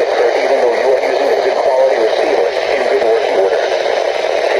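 Weather radio broadcast received through a receiver with a steady static hiss, and a muffled voice wavering faintly beneath the noise.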